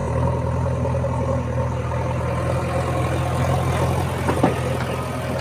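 Heavy diesel engine running steadily with a deep drone, with a couple of short knocks about four seconds in.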